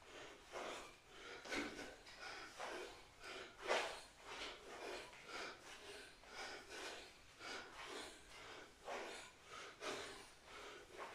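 A person breathing hard and fast while exercising, short puffs of breath at about two a second.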